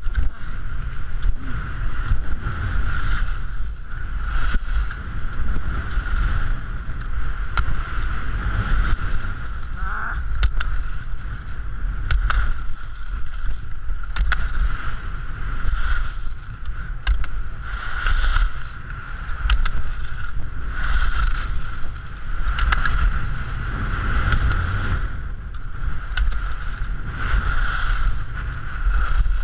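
Atomic race skis carving down a groomed slope, the edges scraping on hard snow in a sound that swells and fades every couple of seconds with the turns. Heavy wind rumble on the action camera's microphone runs underneath, with occasional sharp clicks.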